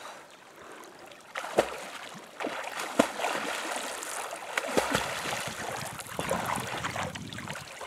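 A swimmer's strokes splashing through calm river water, starting about a second and a half in and carrying on steadily, with a few sharper slaps of the water.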